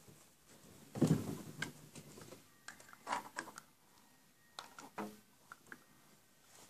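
Scattered clicks and knocks of horizontal window blinds being handled and opened, the loudest about a second in.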